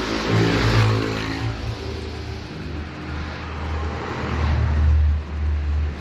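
A motor vehicle engine running and revving, loudest about half a second in and again around five seconds in.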